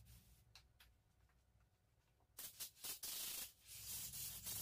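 Compressed-air blow gun blowing out radiator fins, clearing off brake cleaner and loosened dirt. Quiet at first, then a few short hissing blasts about two and a half seconds in, followed by longer blasts near the end.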